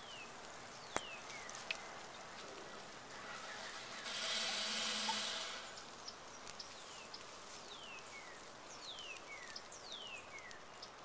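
A bird repeats a short, falling whistled call about eight times, mostly in the second half. A rushing hiss swells for about two seconds near the middle, and two sharp clicks sound in the first two seconds.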